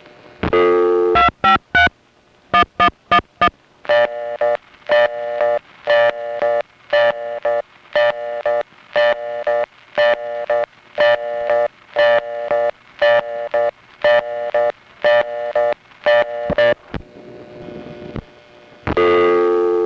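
Telephone line on an old No. 5 crossbar exchange: seven short touch-tone digits are keyed, a three-digit test code and then four more, followed by the reorder tone. It pulses on and off about once a second for some twelve seconds, and near the end a buzzy dial tone comes on again.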